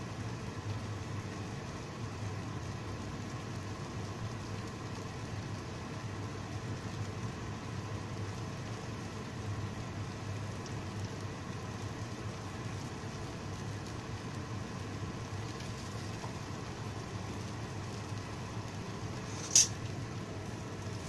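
Steady hiss of mushroom gravy simmering in a pan on a gas stove as pieces of browned pork are laid in, over a low steady hum. A single sharp clink, the loudest sound, comes near the end.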